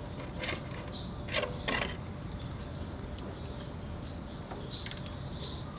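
A few light knocks and clicks as a clear plastic drain container is set under the gear hub and a ratchet with a 12 mm socket is fitted onto the transmission drain bolt of a Yamaha Vino 125 scooter, with a quick cluster of clicks near the end, over a steady low hum.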